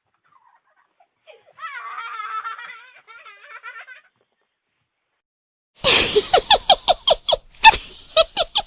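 Two separate laughter sound-effect clips. About a second and a half in, a high-pitched giggling laugh runs for two or three seconds. After a short silence, a louder laugh of quick, rhythmic "ha-ha" pulses, about five a second, starts near the end.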